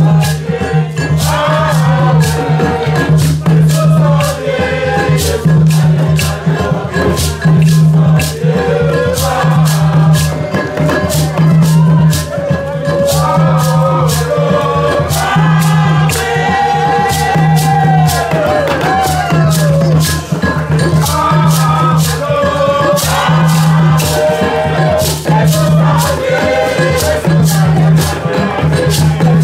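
A group of voices singing a lively hymn together, with handclaps and a shaken rattle keeping a steady beat and a low drum sounding in a repeating pulse underneath.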